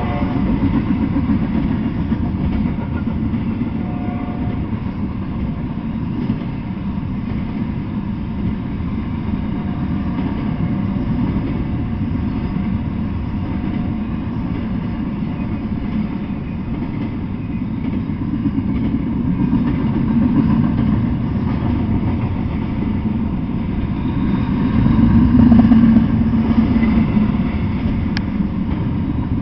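Double-stack intermodal freight train rolling past at a steady speed: a continuous low rumble of steel wheels on rail, swelling briefly near the end.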